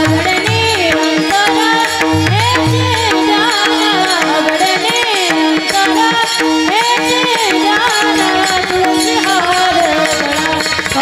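Marathi kirtan devotional music: a woman sings a long, gliding melodic line over a steady held drone, with small hand cymbals keeping time. Low pakhawaj drum strokes sound in the first few seconds, then drop away.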